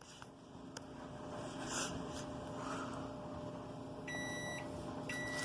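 Microwave oven running with a steady hum, then two electronic beeps about a second apart near the end.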